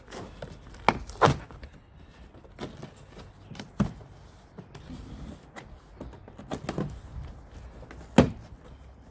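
A large cardboard shipping box being handled and opened, with scattered knocks and clatter, the loudest near the end, from the metal exhaust pipes shifting inside.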